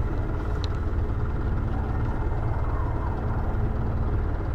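Catamaran's engine running steadily while motoring, a low even rumble.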